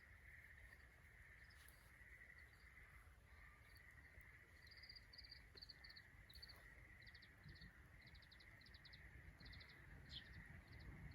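Faint outdoor ambience: a small bird chirping in short, rapid trills from about four seconds in, over a steady high insect drone.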